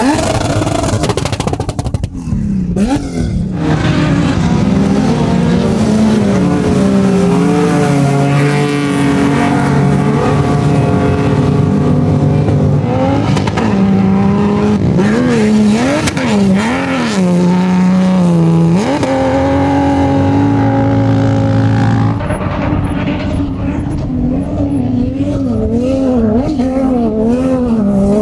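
Off-road 4x4 engines revving hard as they charge up a sand dune, held near the rev limiter, the pitch wavering quickly up and down in places. One engine note gives way to another about two-thirds of the way through.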